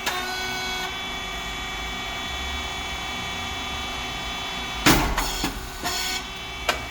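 Rice cake popping machine running with a steady electrical hum. About five seconds in comes a sudden loud burst, followed by a few shorter knocks.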